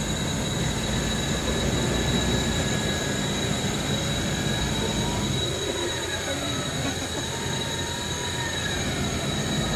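Nissan Patrol 4x4 being winched up a deep mud rut: its engine and the winch run steadily under load. The heavy low rumble thins out about halfway, and a whine rises and falls in pitch through the second half.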